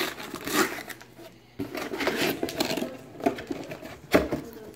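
Cardboard filter box being opened by hand: the end flap scraping and the box rustling, with a sharp knock near the end.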